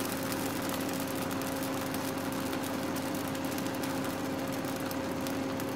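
A steady, even machine hum, pitched on two constant tones, over a faint hiss.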